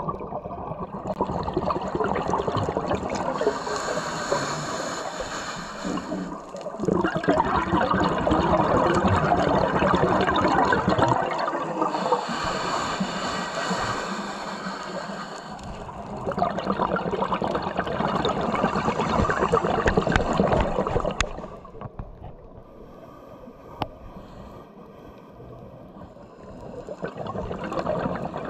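Scuba regulator exhaust bubbles recorded underwater: several-second surges of rushing, crackling bubbles with short quieter gaps between them, following a diver's breathing. A longer quieter stretch comes about three quarters of the way through before the bubbling picks up again.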